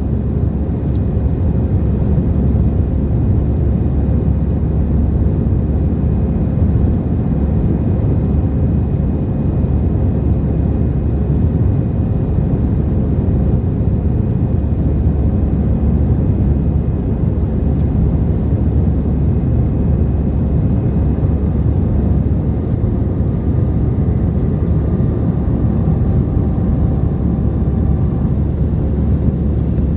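Cabin noise inside an Airbus A321 climbing out after takeoff: jet engines and airflow in a steady low rumble, with faint thin whines above it.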